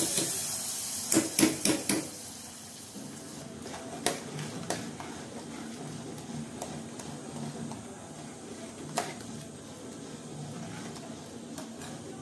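Hot spice tempering sizzling as it goes into the sambar, dying away within the first second. A ladle then knocks against the pan several times, and the sambar is stirred in an aluminium pressure-cooker pot, with a few single clinks of the spoon against the rim.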